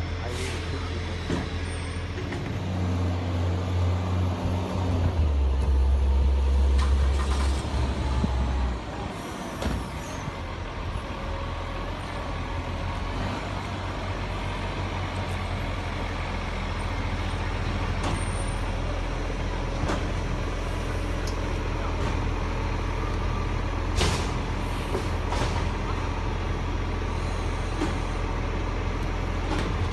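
Garbage truck's diesel engine running, louder for a few seconds early on and then steady, with a couple of short air-brake hisses.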